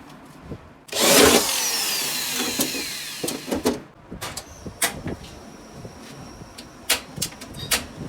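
A power tool cuts in suddenly about a second in and winds down over about three seconds, its pitch falling. It is followed by scattered sharp clicks and knocks.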